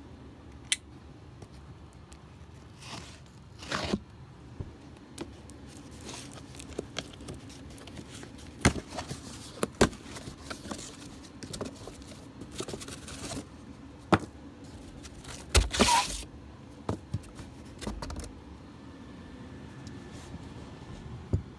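Handling noises as a new furnace blower motor is unpacked: cardboard box rustling and tearing, with scrapes and scattered knocks of the metal motor and tools on a plywood floor.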